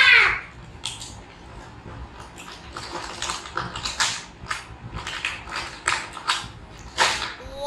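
Irregular clicks, taps and crinkles of a toy's box and packaging being handled and opened.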